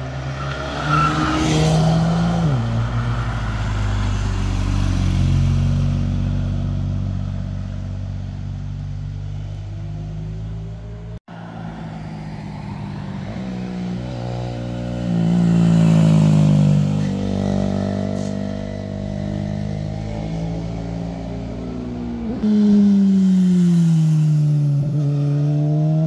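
A Ford hatchback's engine pulling through a hairpin bend. After a sudden cut, motorcycles pass one after another, their engine pitch falling and rising as they slow into the curves and accelerate out.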